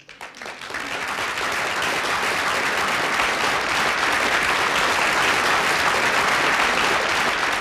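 Audience applauding: dense, steady clapping that swells up within the first second after a piano piece ends.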